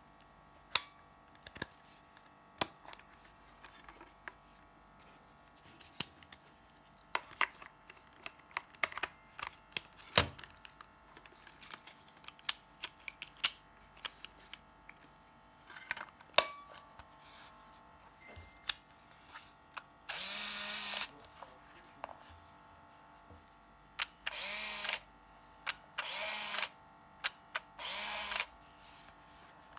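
Plastic clicks and snaps of a Samsung Fino DLX30 35mm compact film camera being handled and its film door worked while film is loaded, then the camera's built-in film-advance motor whirring: one run of about a second, then several shorter whirrs near the end.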